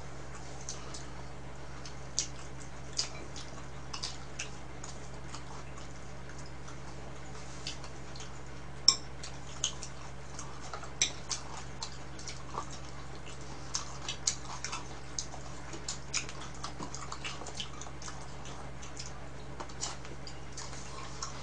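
Irregular light clicks and taps of chopsticks against plastic food containers and bowls as food is picked up, over a steady low hum.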